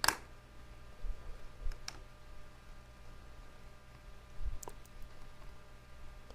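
A small screwdriver working a tiny screw out of a tablet's internal frame: a few sharp clicks of metal on metal, one at the start and two more spread through, with a couple of soft low knocks, over a faint steady hum.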